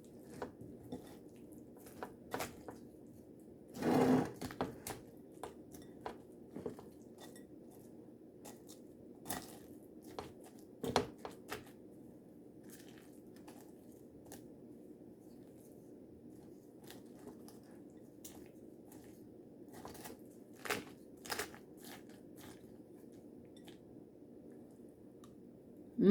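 Taco salad with tortilla chips being stirred together in a bowl: scattered crunches and clicks, the loudest about four seconds in and again near eleven seconds, over a faint low hum.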